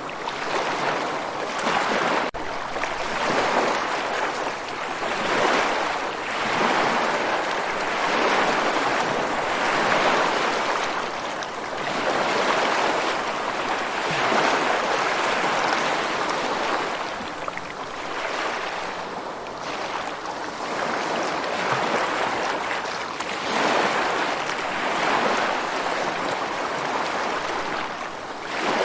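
Ocean surf: waves breaking and washing in, the hiss swelling and fading every two to three seconds.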